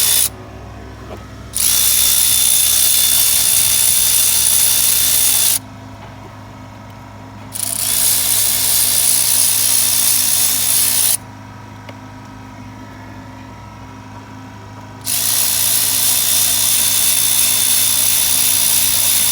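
Power tool run in three long bursts of about four seconds each, with a steady high whine over a hiss. Between the bursts a quieter steady hum carries on.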